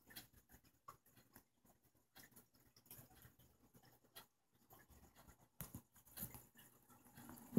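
Near silence, with faint scattered ticks and scratching sounds and a few slightly louder clicks about five and a half to six seconds in.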